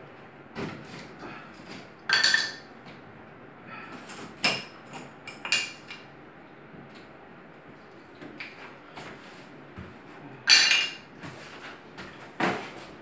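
Hand tools and small metal objects clattering and knocking on a marble tub deck: a string of irregular hard clinks with a short metallic ring, the loudest about two seconds in and again about ten and a half seconds in.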